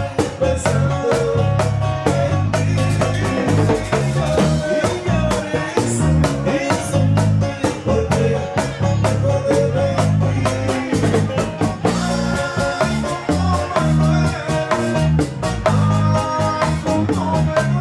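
Band music with a steady drum and percussion beat, a repeating bass line and guitar, with little or no singing.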